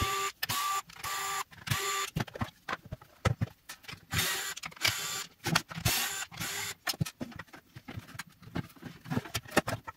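Cordless screwdriver whirring in short half-second pulses as it backs out the battery pack's housing screws. Near the end come scattered clicks and knocks of the plastic housing being pulled apart.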